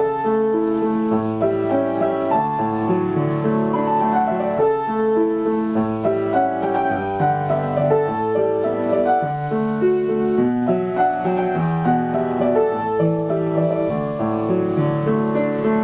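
Solo piano music at a gentle, even pace: sustained chords over bass notes that change about once a second.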